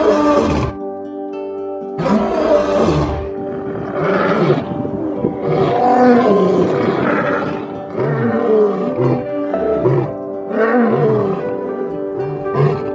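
Male lions roaring: a roar at the start, then a bout of long roars that grow shorter and closer together into grunting roars about a second apart. Background music with sustained notes plays underneath.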